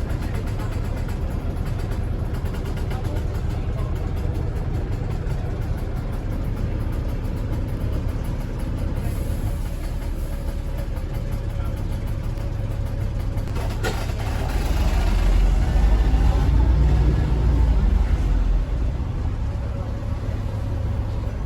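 Bus engine and ZF automatic gearbox heard from inside the bus, running steadily at low speed. About 14 seconds in there is a sharp knock, then the engine grows louder for about four seconds as the bus pulls harder, before settling back.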